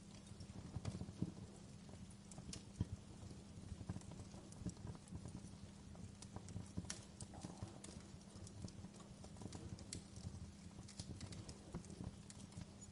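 Wood fire burning in a fireplace: logs crackling and popping in irregular sharp snaps over a low steady rumble.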